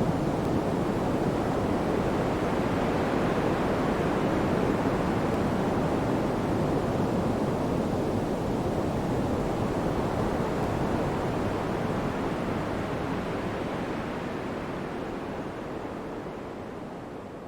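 Pink noise: a steady, even hiss like distant surf, fading out over the last few seconds.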